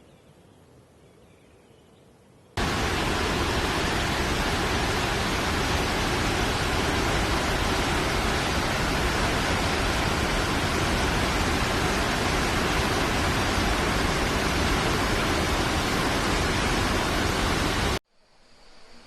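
Steady, loud rushing of a waterfall. It starts abruptly about two and a half seconds in and cuts off suddenly near the end.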